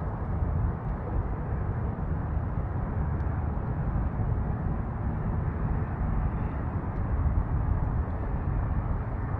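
Steady low rumble with a fluttering wash of noise, typical of wind buffeting the microphone on a boat under way; no clear engine tone stands out.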